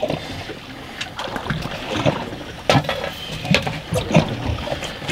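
Water lapping and splashing against the hull of a drifting fiberglass center-console boat, with a few sharp knocks and rustles as a large tautog is handled; the loudest knock comes a little past halfway.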